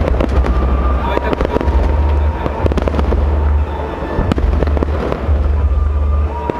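Fireworks going off: a rapid run of bangs and crackling from aerial shells bursting, over a steady low rumble.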